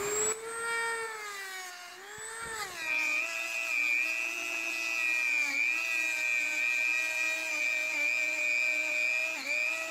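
Dremel rotary tool spinning a small Scotch-Brite abrasive pad against the aluminium exhaust port of a cylinder head: a steady high-pitched whine whose pitch sags and recovers several times as the pad is pressed into the port.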